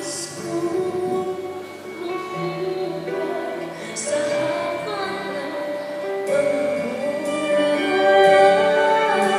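Two women singing a pop duet into microphones, growing louder toward the end.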